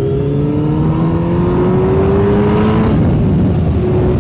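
Yamaha Fazer 600's inline-four engine, fitted with a K&N air filter and a Micron aftermarket muffler, pulling under throttle while riding, its note rising steadily in pitch. About three seconds in the rising note stops and the engine sound drops back under wind and road noise.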